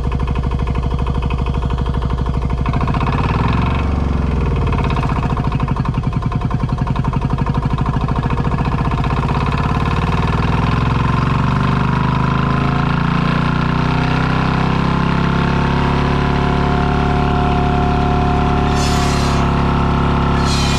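Holder single-axle tractor's two-stroke diesel engine running steadily under load, driving a firewood saw, with a change in engine note about three seconds in. A couple of short, sharp noises near the end.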